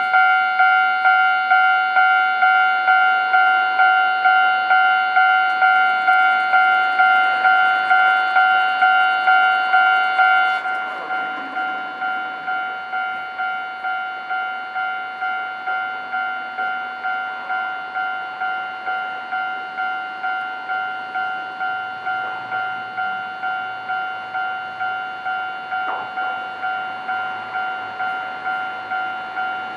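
Japanese railway level-crossing electronic warning bell ringing, a repeating ding at about one and a half strikes a second. About ten seconds in it drops to a lower level and keeps ringing.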